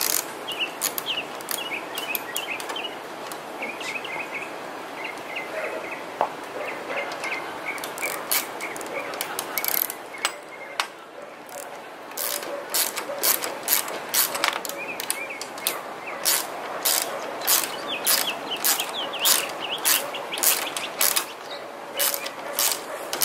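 Ratchet wrench clicking in quick bursts of short back-and-forth strokes as a nylon-insert lock nut is tightened onto a bolt. The clicks are sparse at first, pause about ten seconds in, then come thick and fast.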